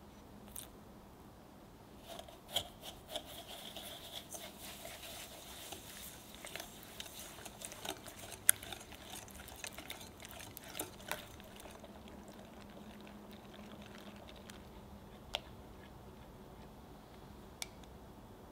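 A whisk beating an egg, sugar and honey mixture in a glass bowl, with quick light taps and clicks against the glass and a wet swishing. The whisking is busiest for about ten seconds, then eases to slow stirring with only a few single taps.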